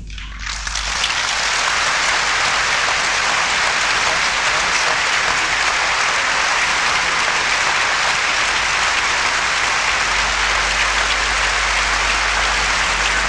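A large audience applauding, the clapping swelling over about the first second and then holding steady.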